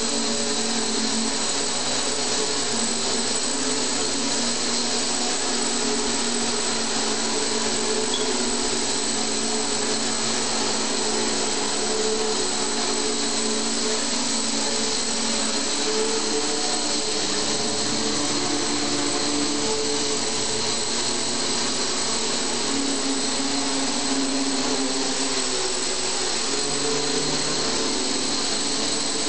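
Home-built X8 multirotor, a quadcopter frame fitted with eight brushless motors on four arms, hovering: a steady, loud motor-and-propeller buzz whose pitch drifts slightly up and down as the motors hold it in the air.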